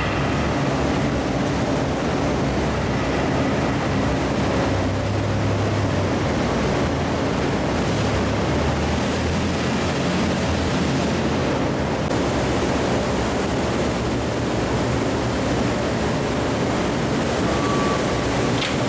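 Steady machine-shop noise: a continuous rushing hiss over a low hum, with no distinct events.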